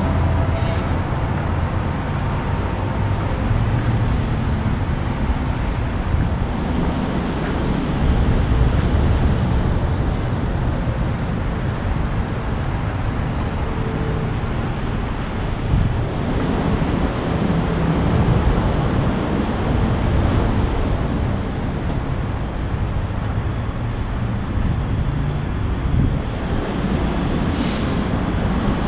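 Outdoor ambience of wind noise on the camera microphone, with road traffic underneath. A brief hiss sounds near the end.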